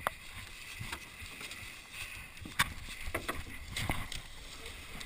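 A few sharp, irregular knocks and scrapes of an aluminum jon boat being handled at the water's edge.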